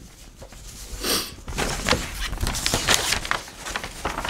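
Sheets of paper being handled and shuffled: a short noisy rustle about a second in, then a run of crackling paper rustles.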